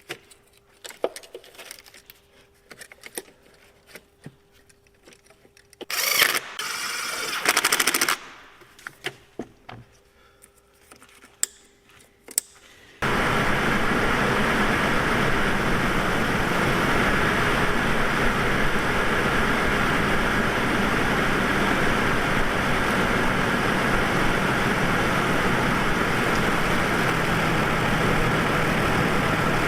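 Light clicks and handling knocks, then a brief loud hiss. About 13 seconds in, the 2002 Chevy Trailblazer's 4.2-litre straight-six is suddenly heard running steadily, its idle carrying the misfire traced to the number 1 ignition coil.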